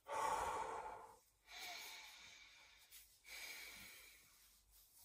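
A man breathing heavily: three long breaths, the first the loudest and each fading more than the last.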